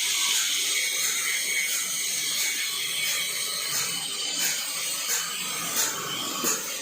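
Sawmill band saw cutting mango wood: a steady hissing rasp with a regular tick about every two-thirds of a second.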